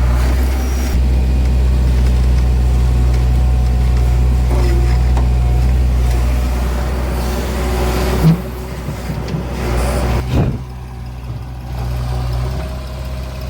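Heavy machine's diesel engine running steadily under load. A sharp knock about eight seconds in, after which the engine falls quieter, with a few knocks following.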